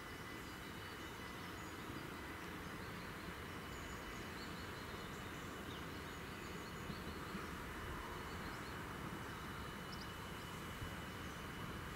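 Steady outdoor background noise with the faint sound of a distant Stadler GTW diesel railcar approaching. Over it are a faint steady high whine and a few faint bird chirps.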